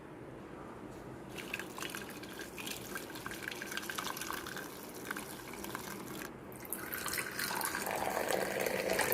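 Tea being poured into a cup in two pours with a short break about six seconds in. The second pour grows louder until it stops.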